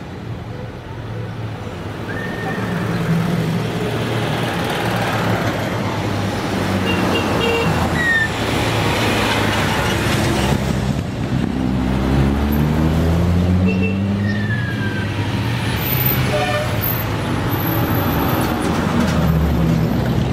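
A line of cars and motorcycles driving past one after another, engines rising and fading as each goes by. About halfway through, a motorcycle engine rises in pitch as it accelerates past.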